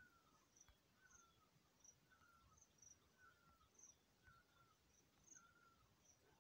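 Near silence, with a faint chirp that falls slightly in pitch repeating about once a second and fainter high chirps in between.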